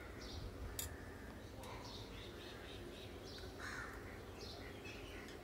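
Faint birdsong: short high chirps repeating every second or so, over soft stirring of corn kernels in a pan, with one light click about a second in.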